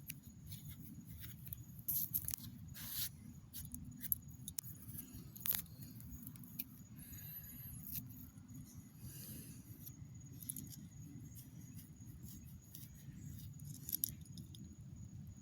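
Faint scattered clicks and rustles over a low steady rumble, with a faint steady high tone.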